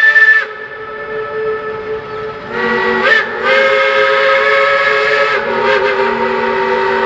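Shay geared steam locomotive's whistle: a long blast ends just after the start, then another begins about two and a half seconds in, breaks briefly, and holds for a few seconds before fading to a fainter tone.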